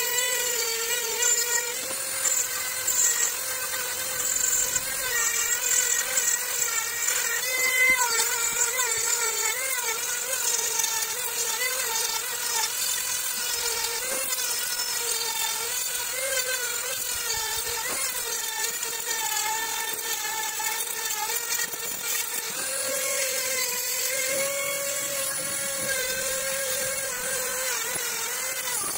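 Handheld rotary tool with a small grinding stone shaping a repaired cooling fin on a cylinder block: a steady high motor whine whose pitch dips and wavers as the stone bears on the work.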